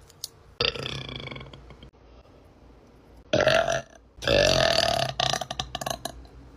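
A woman burping deeply several times. A burp about half a second in fades out, then comes a short loud burp past halfway and a long deep burp of about two seconds that breaks up near the end.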